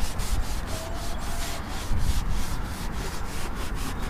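Blue paper shop towel rubbed quickly back and forth over the van's metal roof, about four to five scrubbing strokes a second.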